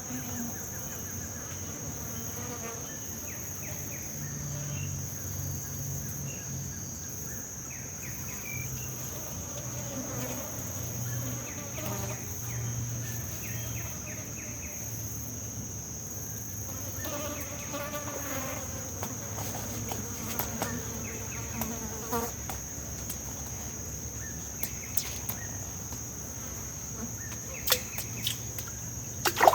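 Insects chirring in a steady, high, even drone, with other faint pulsed calls coming and going. There are a few sharp clicks near the end.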